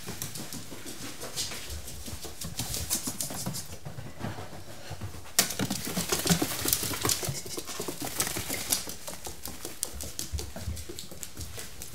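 An Italian greyhound moving about: rapid, irregular clicks and scratches, getting busier and louder about five seconds in.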